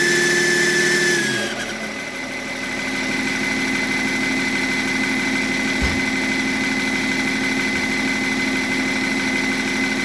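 BMW E38's M57 straight-six diesel with a rebuilt variable-geometry turbocharger: the engine falls from raised revs back to idle about a second in, then idles steadily with a thin, steady high whistle. The whistle is the turbo howl that the owner finds goes away when the geometry control valve's connector is unplugged.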